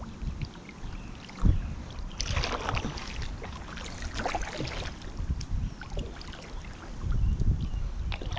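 Paddle strokes in the water from a paddle board being paddled along: two splashy strokes about two seconds apart, over low wind rumble on the microphone, with a single thump about a second and a half in.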